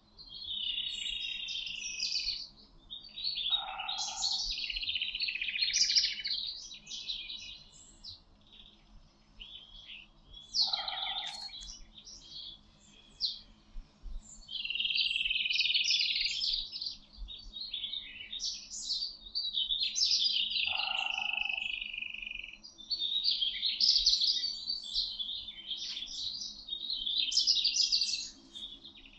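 Songbirds singing in a forest: long warbling, twittering phrases follow one another every few seconds with short gaps. A lower two-note call sounds three times, about seven to ten seconds apart.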